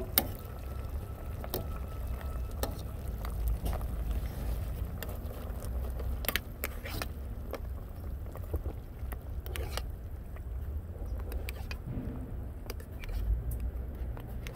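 A metal serving spoon clinking and scraping against a metal frying pan now and then while stirring a stew of steamed fish and okra, a dozen or so separate clicks over a steady low rumble.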